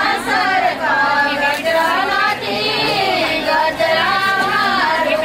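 Women singing, with held notes that rise and fall in pitch.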